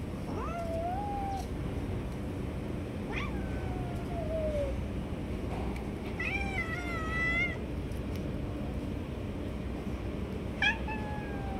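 Stray cats meowing to be fed: about four separate meows, mostly falling in pitch, the longest and loudest a wavering one around the middle, over steady low background noise.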